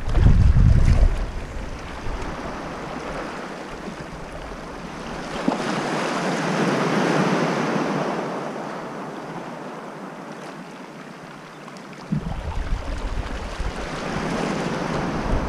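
Small waves washing in the shallows, one surge swelling and fading in the middle. Wind buffets the microphone with a low rumble at the start and again over the last few seconds.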